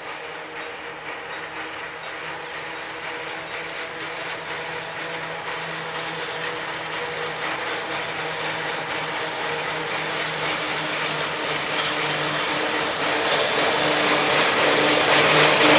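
Six-axle electric locomotive FZe 6/6 2002 (ex-MOB DZe 6/6) approaching with a train of vintage coaches: a steady whine from its motors and gearing gets louder as it nears. From about nine seconds in, a hiss of wheels on rail builds, with a few clicks over the rail joints.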